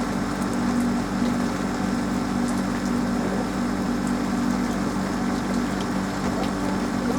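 Rain falling steadily on a roof, with scattered small drop ticks, over a loud low mechanical hum that swells and fades at a regular pace.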